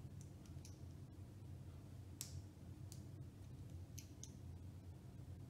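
Faint, scattered clicks of small LEGO plastic pieces being handled and pressed together by hand, about half a dozen, the sharpest about two seconds in, over a low steady room hum.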